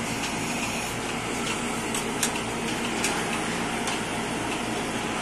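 Bucket milking machine running: a steady hum and hiss from its vacuum pump and hoses, with a few faint clicks.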